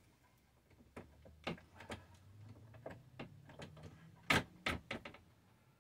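Small metal hardware and hand tools being handled on a workbench: a run of irregular clicks and clinks, the two sharpest about four and a half seconds in.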